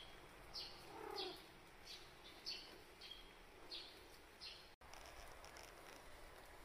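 Faint bird chirping: short, high, falling notes repeated about every half second. A lower falling call comes about a second in. The chirping cuts off abruptly about five seconds in, leaving only a faint hiss.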